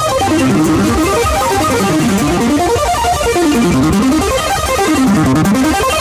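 Loud music played through a pickup's speaker wall: fast plucked-string-like runs of notes sweeping down and back up in pitch about every second and a half, over a steady bass.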